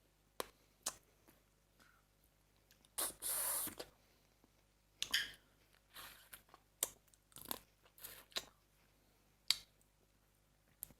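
Close-up eating sounds: blue swimmer crab and spicy salad being chewed and crunched, in scattered short crackles and clicks, with one longer hissing sound about three seconds in.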